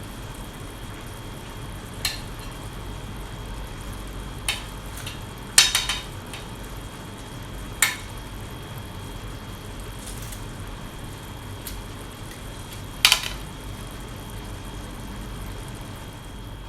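Utensils clinking against a cooking pot as chicken pieces are set into the rice: about six short sharp clinks, the loudest about a third of the way in and again near the end, over a steady hiss.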